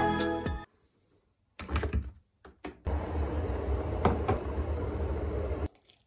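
Background music fades out. Then come a few clunks of a mug and kettle on a kitchen counter, and a cordless electric kettle heating water with a steady rumbling hiss and a knock partway through. The hiss cuts off suddenly near the end.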